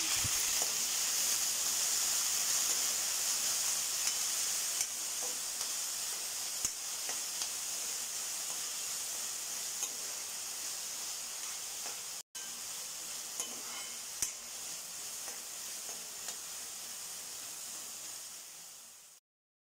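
Diced potatoes sizzling in hot oil in a kadai, with small clicks and scrapes of a metal spatula against the pan as they are stirred. The sizzle cuts out for a moment partway through and fades away near the end.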